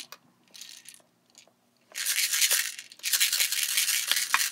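Cord being pulled and wrapped around a rough, barky stick, rasping and scraping in three bursts, the last and longest near the end.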